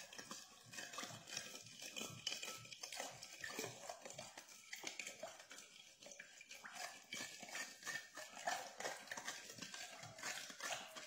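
A utensil stirring salt into water in a container, with light, irregular clinks and scrapes against its sides, as the salt dissolves for pizza dough.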